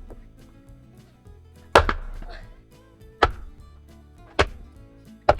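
Axe striking an oak log four times, each a sharp wooden chop about a second apart, as the log nears splitting.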